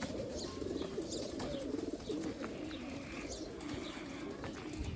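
A flock of young racing pigeons cooing, many low wavering coos overlapping without pause.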